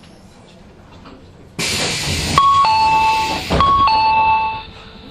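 Train door chime played through the in-car speakers of a Fujikyu 5000 series electric train: a two-note high-then-low ding-dong, sounded twice, signalling the doors at the station stop. It rides over a sudden loud rush of noise that starts just before the first chime and dies away near the end.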